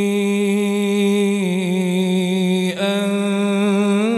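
A man's voice reciting the Quran in a melodic chanted style, holding one long note whose pitch wavers gently. There is a short break about three seconds in before the held note resumes.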